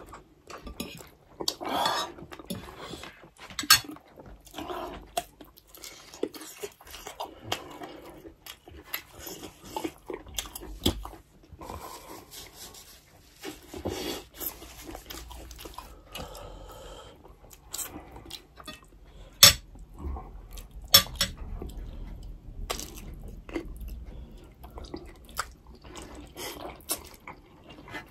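Forks and spoons clinking and scraping on plates, with slurping and chewing of instant ramen noodles. Scattered sharp clinks, the loudest about two-thirds of the way through.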